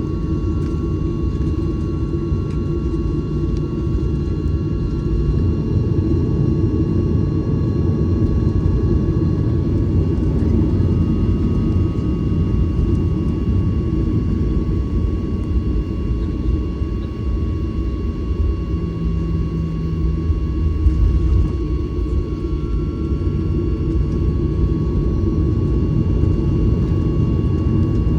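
Steady low rumble of a Boeing 737-900ER's CFM56 jet engines heard from inside the cabin, with a thin steady whine over it.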